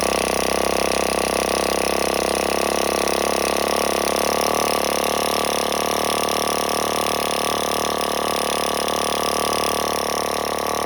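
Freshly rebuilt Traxxas Pro .15 two-stroke nitro (glow) RC engine running steadily at a constant, high-pitched buzz, with no revving up or down.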